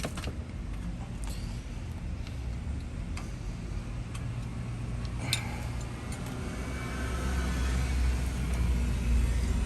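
A steady low rumble, like a vehicle engine running nearby, that grows louder in the second half. Over it come a few light metallic clicks, the sharpest about five seconds in, as a screwdriver works the metal spring clip on a brake caliper.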